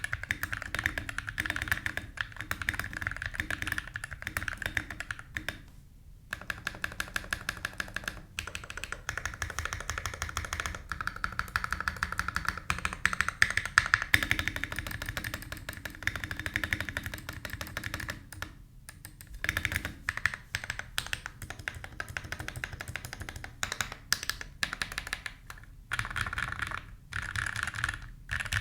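Mechanical keyboard being typed on at a steady, fast pace, with a few brief pauses: Drop Holy Panda tactile switches, heavily lubed with Krytox 205g0 and 105, in a Drop Carina case with a copper plate and no foam.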